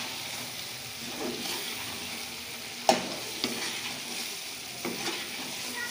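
Chicken karahi sizzling in its oil in a karahi as a metal spoon stirs it. There is a sharp clank of the spoon against the pan about three seconds in, and a few lighter knocks after it.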